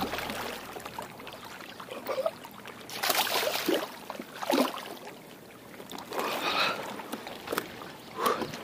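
Small waves lapping against a rocky shore, coming in irregular swishes.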